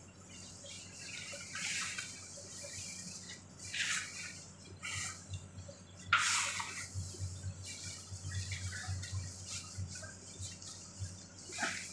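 Cloth and plastic rustling as a gown sleeve and a bed blanket are handled, in several short rustles, the loudest about six seconds in, over a low steady room hum.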